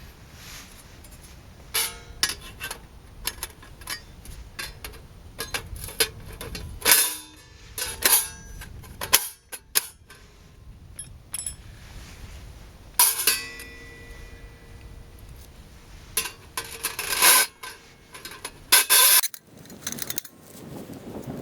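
Thin stainless steel stove panels and fittings being handled: a string of sharp metal clinks and knocks at irregular intervals, a few of the louder hits leaving the sheet metal ringing briefly.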